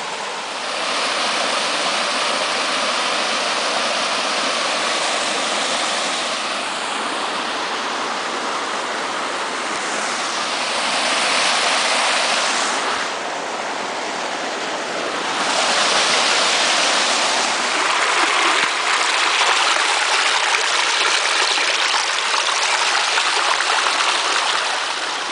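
River water rushing and splashing over a rocky riffle of rounded stones: a steady hiss that swells and eases a few times, loudest in the second half.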